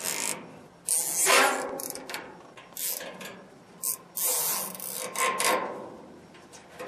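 Plastic zip ties being pulled tight: a series of short ratcheting zips, about six of them with pauses between.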